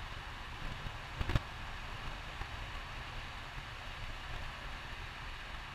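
VW Beetle 1303's rear air-cooled flat-four running steadily on the move, heard from inside the cabin as a low hum under an even hiss of road and wind noise. A single sharp knock sounds about a second in.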